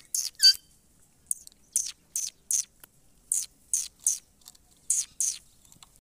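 Indian ringneck parakeet giving a string of short, high, harsh chirping calls, about a dozen, many in quick pairs, the loudest about half a second in.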